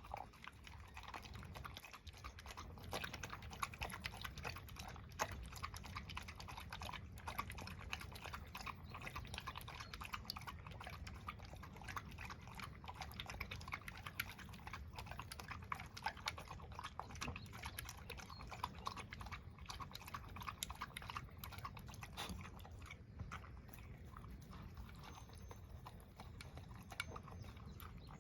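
Dog chewing: a steady, irregular run of small clicks and crunches.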